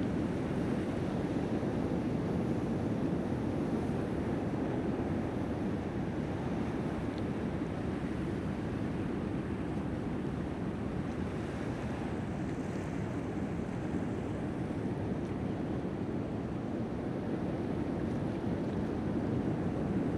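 Ocean surf washing steadily on the shore, an even wash of noise with no distinct breaks.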